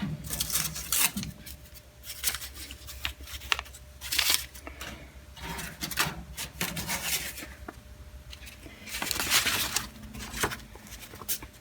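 Sheets of paper and pamphlets rustling as they are handled and leafed through, in several irregular bursts.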